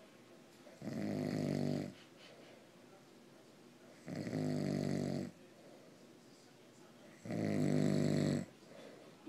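An elderly man snoring in his sleep: three loud snores about three seconds apart, each lasting about a second.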